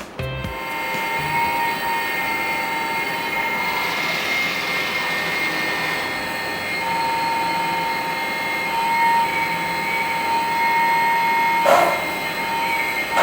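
Hydraulic pump of a 1/14 scale LESU metal hydraulic RC excavator running with a steady whine, a short burst of louder noise near the end.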